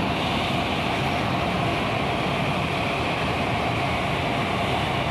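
Hino coach's engine running steadily as the bus pulls away at low speed, a constant drone with a faint steady whine in it.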